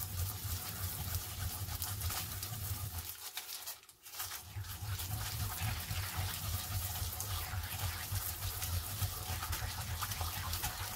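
Japanese mountain yam (yama-no-imo) being grated against the ridged inside of a suribachi mortar: a continuous rasping scrub of quick strokes, with a brief stop about three to four seconds in.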